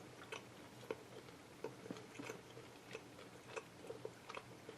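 A person chewing a dense, pressed coconut-and-fruit chew with the mouth close to the microphone. It makes faint, irregular small moist clicks.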